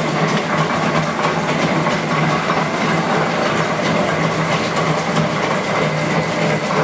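LeBlond No. 2 horizontal milling machine running with its X-axis mechanical power feed engaged: the electric motor drives the gear train, which makes a steady mechanical clatter over a low steady hum.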